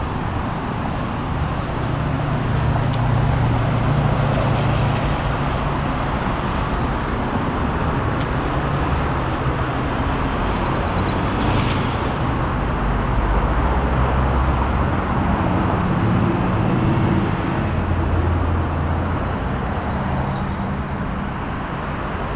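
Steady street traffic noise, with the low hum of passing vehicles swelling and fading.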